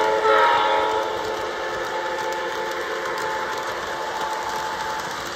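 Model Baltimore & Ohio F3 diesel locomotive passing, its horn sound ending about a second in, then its steady running sound with the wheels rolling on the track.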